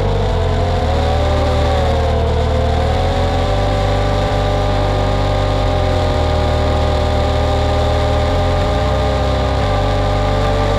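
Racing quadcopter's electric motors and propellers whining as it flies. Several close pitches rise and fall together with the throttle.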